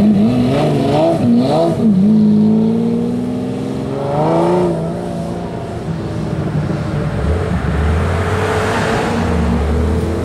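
Lamborghini Diablo's V12 blipping its revs while pulling out, then accelerating hard with a steadily rising pitch that breaks off about halfway through. It then fades into road hiss, with a low engine drone in the last few seconds.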